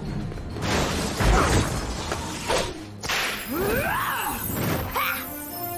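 Cartoon action sound effects: three rushing whooshes, each with a swooping pitch sweep, with a whip-like swish of Wonder Woman's golden lasso.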